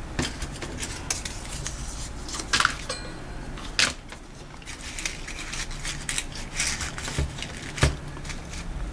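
Paper leaves and paper flowers crinkling and rustling against a dry twig wreath as a leaf is tucked in by hand, with scattered small clicks and crackles. A few sharper crackles come about two and a half seconds in, about four seconds in, and near the end.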